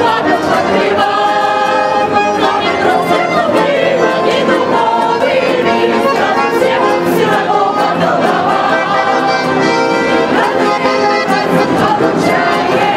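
A group of voices singing a song together in chorus, with instrumental accompaniment.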